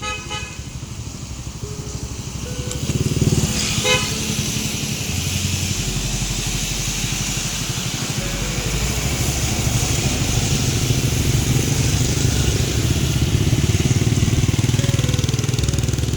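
Busy street traffic in the rain: a steady hiss of rain with vehicle engines running. A brief horn toot at the start and another about four seconds in.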